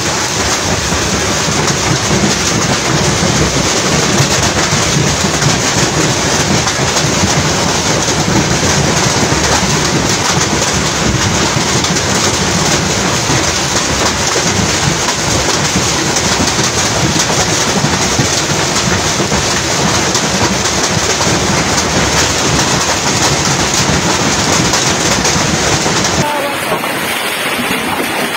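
Heavy hailstorm: hail and rain pelting down hard, a loud, dense, steady hiss. About two seconds before the end the sound turns thinner and slightly quieter.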